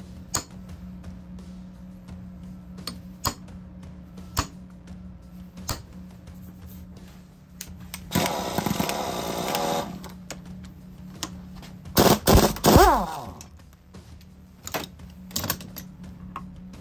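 Sharp metal clicks and knocks of hand tools and locking pliers on a heavy starter motor's pinion end held in a vise, over a steady electrical hum. About halfway through comes a two-second stretch of dense mechanical noise, and about two-thirds through a loud clattering burst that falls in pitch.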